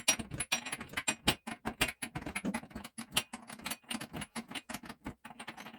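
Quick, irregular metallic clicks and clinks as a large bolt is unscrewed with an Allen key holding the shaft locked.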